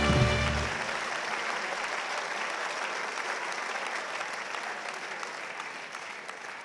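Audience clapping, a dense even applause that slowly dies away. Band music plays over it for the first second and then stops.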